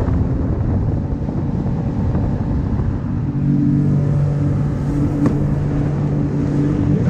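Personal watercraft engine running, with rushing water and a rough, uneven note as the craft turns through spray, then settling into a steady engine tone from about three seconds in as it cruises slowly.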